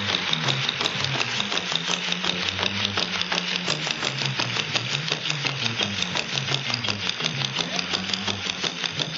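Instrumental break of a 1960s beat-group song played live: an electric bass line moving up and down under a fast, steady percussive beat, several hits a second, with no singing.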